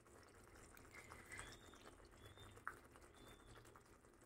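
Near silence, with a few faint clicks and one slightly sharper click about two and a half seconds in.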